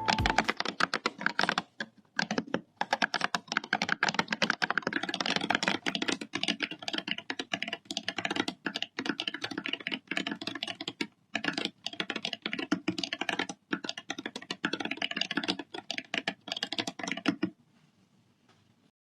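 Fast typing on a Bbox60 keyboard fitted with ceramic keycaps: a dense run of clacking keystrokes with a few brief pauses. It stops about a second and a half before the end.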